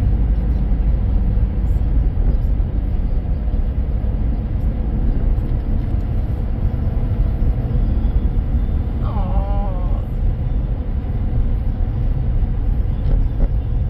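Steady low rumble of a car's tyre and engine noise, heard from inside the cabin while driving on a paved road.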